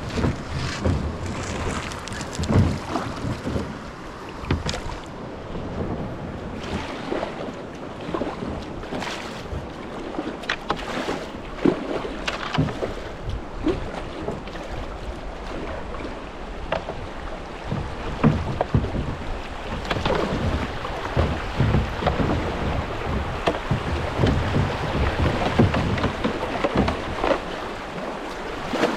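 Kayak paddling down a flooded creek: fast-running floodwater with irregular splashes from the paddle and water against the boat.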